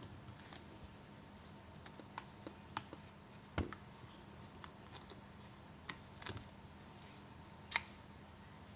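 Scattered light clicks and taps of large electrolytic capacitors being handled and their leads pushed into a printed circuit board, with a sharper knock about three and a half seconds in and another near the end.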